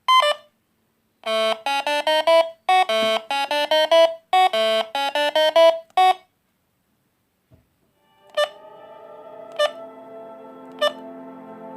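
Monophonic ringtone of an Alcatel One Touch Easy DB mobile phone: a quick melody of buzzy single beeping notes that stops about six seconds in. After a short silence, softer music with held chords and a light tick about every second and a quarter begins.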